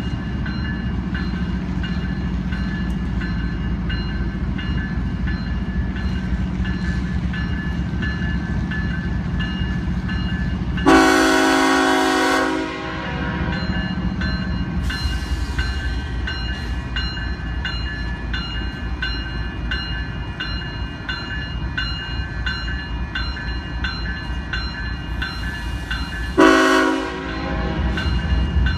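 Diesel freight train led by a GE ES44AC locomotive rumbling steadily past. Its air horn sounds twice: a blast of about two seconds about eleven seconds in, and a shorter one near the end.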